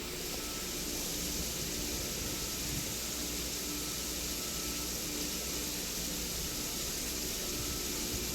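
Steady hiss over a low mechanical hum, with a faint tone pulsing on and off about twice a second.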